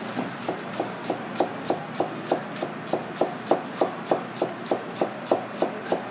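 Chef's knife slicing a green onion into thin rings on a plastic cutting board, the blade knocking on the board in a steady rhythm of about three cuts a second.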